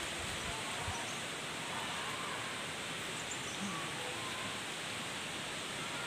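Steady outdoor rushing hiss of forest ambience, with a few faint, brief chirps or distant voices over it.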